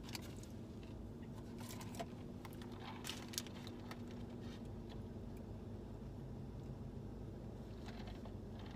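Low, steady hum of a car's cabin, with a few faint, short clicks and mouth sounds as a drink is sipped through a straw from a foam cup.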